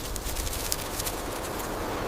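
A few irregular crunching footsteps over a steady outdoor rustle.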